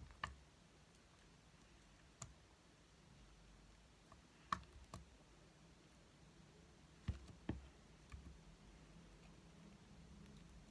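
Near quiet room with about seven small, sharp clicks and taps, scattered irregularly; the loudest comes about four and a half seconds in.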